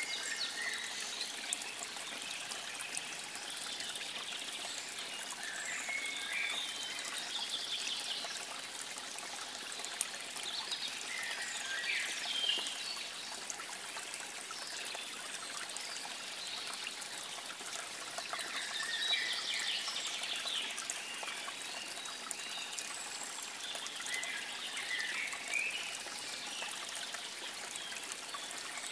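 Water trickling steadily, like a small stream, with a bird singing short phrases about every six seconds.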